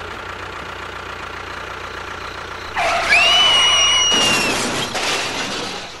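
Tractor engine sound effect running steadily. About three seconds in comes a loud high screech, then a crash with breaking and clattering that fades away.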